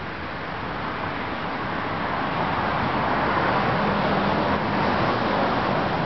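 Road traffic noise, growing gradually louder as a vehicle approaches, with a faint low hum beneath.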